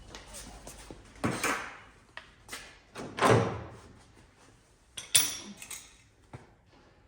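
Thin chisel prying a fibreglass rear quarter panel away from its bonding seam on a 1963 Corvette body: a handful of separate knocks, cracks and scrapes, the loudest about three seconds in and another about five seconds in.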